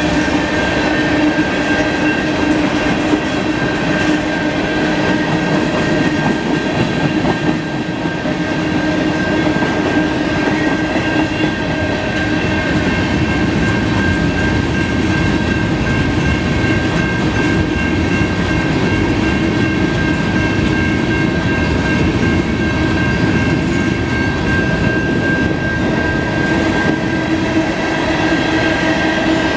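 Freight cars of a mixed freight train rolling past, mostly covered hoppers and steel gondolas: steel wheels on the rails give a steady rumble with a steady high ringing tone over it.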